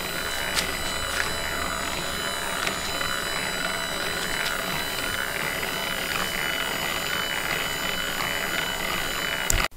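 Windscreen-wiper-motor auxiliary drive turning a lathe's leadscrew, a steady mechanical run with a high whine and a few light clicks. It cuts off suddenly near the end.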